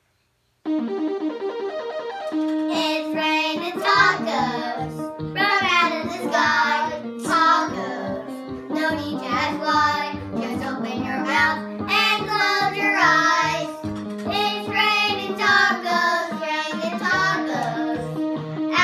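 Upbeat children's pop song starting about half a second in: a backing track with a steady bouncing bass beat, and children's voices singing over it from about two seconds later.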